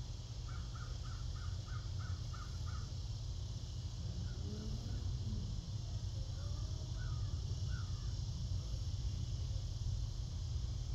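A bird calling outdoors: a quick run of about seven short, evenly spaced notes, then a few scattered calls, over a steady low rumble.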